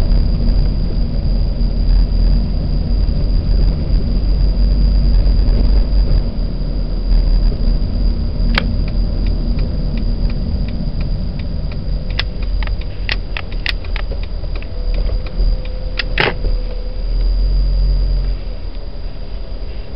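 Cabin sound of a 1998 Honda Step WGN on the move: a low rumble of its 2.0-litre four-cylinder engine and road noise at about 1,500 rpm, which eases near the end as the van slows almost to a stop. A scatter of sharp clicks or knocks comes in the second half.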